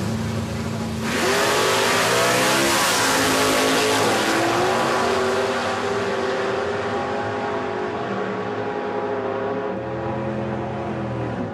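Two drag-racing cars launching off the line about a second in at full throttle. The engine pitch climbs, drops at a gear change and climbs again, then the sound slowly fades as the cars run away down the strip.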